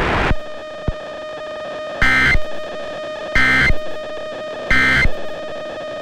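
Emergency Alert System end-of-message signal: three short bursts of SAME digital data tones, about a second and a bit apart, over a steady held tone from the station's audio.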